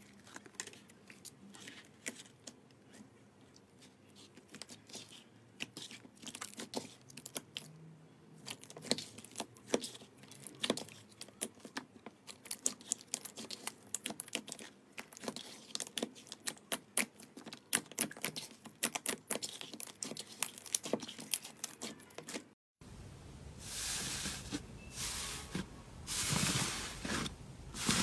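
Hands squishing and pressing slime, making many small sticky crackles and pops that grow denser partway through. Near the end come louder tearing and crinkling sounds as a thick slime is stretched and pulled apart.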